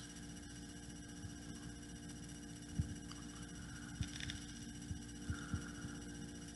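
Quiet room tone: a steady low electrical hum, broken by a few faint soft thumps.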